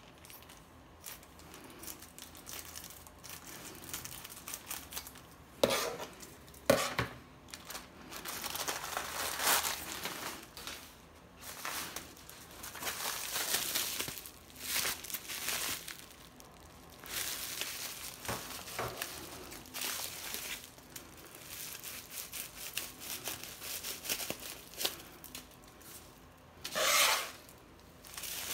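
Plastic mailer bag and bubble wrap crinkling and rustling in irregular bursts as they are cut open with scissors and handled. There are two sharp clicks about six and seven seconds in, and a loud rustle near the end.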